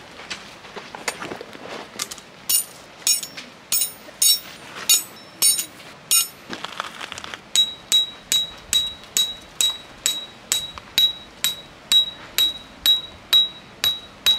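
A hammer driving a metal tent peg: sharp ringing metallic strikes, a first run of blows a little after two seconds in, a short pause, then a steady run of about two and a half blows a second.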